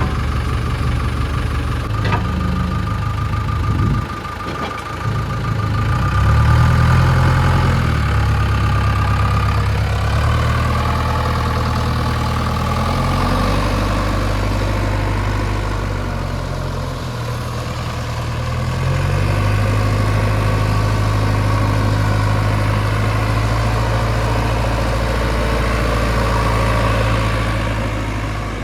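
Diesel engine of a JCB 3DX backhoe loader running at work, its revs dropping and rising again several times as the machine takes load, with a single knock about two seconds in.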